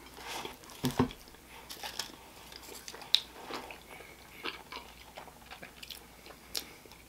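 Close-miked chewing of a chopped cheese sandwich: wet mouth clicks and soft crunches, with a few louder bites about one, two and three seconds in.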